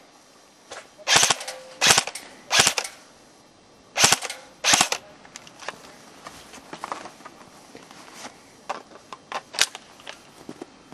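An airsoft rifle firing five single shots, three in quick succession then two more, each a sharp crack. Lighter clicks and knocks follow.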